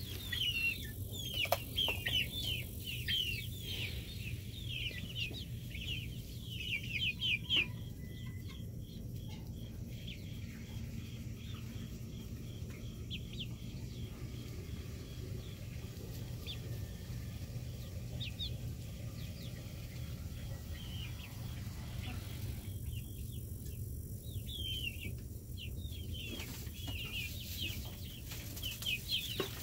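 Young hens chirping and clucking: bursts of rapid high chirps in the first eight seconds and again near the end, over a steady low hum.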